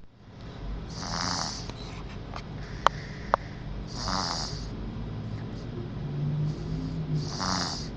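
Snoring in slow, regular breaths: three rasping snores about three seconds apart. Two short sharp clicks come between the first and second snores.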